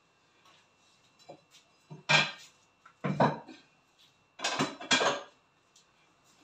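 Dishes and kitchen utensils clattering: a few light clicks, then four loud knocks and rattles between about two and five seconds in.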